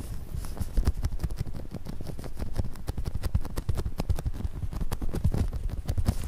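Disposable-gloved fingers rubbing and tapping on a brain model close to the microphone: a quick, uneven run of soft taps and low thuds.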